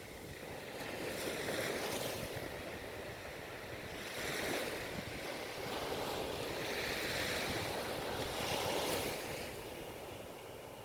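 Ocean surf washing onto the shore, a steady rush of water that swells and eases in slow surges as waves come in, dropping a little near the end.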